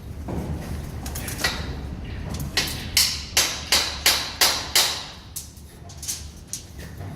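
Hammer blows: a couple of single strikes, then a run of about seven quick, even strikes, roughly three a second.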